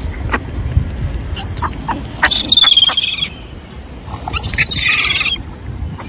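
Gull giving high-pitched calls: a few thin short notes about a second and a half in, then two loud runs of rapid repeated calls, one starting about two seconds in and one about four and a half seconds in.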